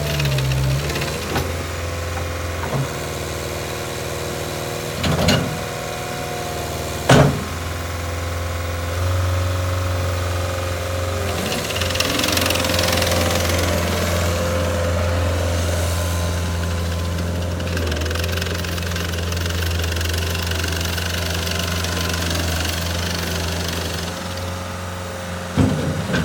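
Cat 277B skid steer loader's turbo diesel engine running steadily, its note stepping up about nine seconds in. A few sharp clunks break in, about five and seven seconds in and near the end, and a hiss comes in for a couple of seconds around the middle.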